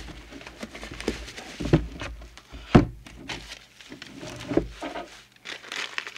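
Bubble wrap and paper packing being handled and pulled out of a cardboard box, with a few dull thumps and knocks, the loudest about three seconds in. Paper crinkles near the end.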